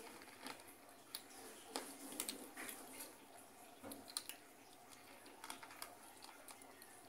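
Kittens eating dry kibble from a plastic bowl: faint, irregular crunching and clicking of the pellets.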